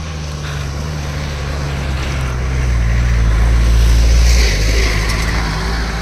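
Jeep driving past, its engine growing louder to a peak about four seconds in and then easing off.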